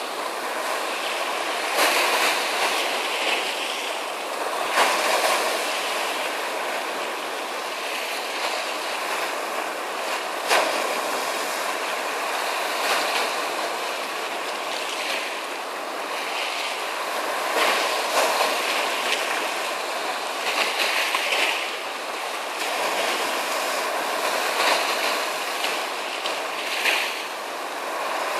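Sea waves breaking: a continuous hiss of surf that swells and falls back every two to three seconds, with a few sharper splashes.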